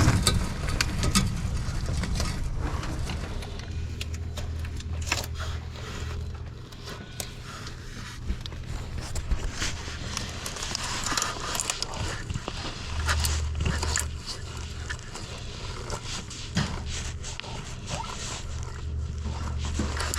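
Hand-tool work on a car engine's belt drive: scattered metal clicks, clinks and scrapes as the serpentine belt tensioner is levered with a wrench and the belt is worked off the pulleys. A low hum comes and goes underneath.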